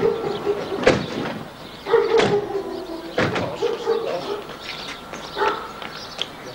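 Car doors slamming shut three times, about a second apart, as several people get out, followed by lighter footsteps on the pavement.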